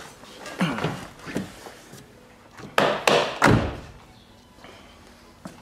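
A car door pushed shut with a heavy thunk about three seconds in, after a couple of lighter handling knocks.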